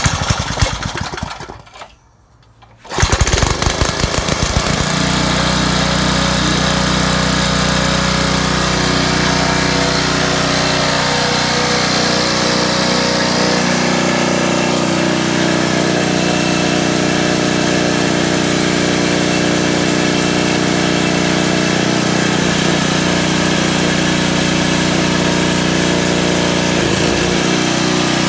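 5-horse Briggs & Stratton single-cylinder engine being pull-started with its recoil starter: a first attempt dies after about two seconds, then it catches about three seconds in and settles into steady running. The engine has a freshly cleaned carburetor with a new diaphragm, the fix for its only running on choke.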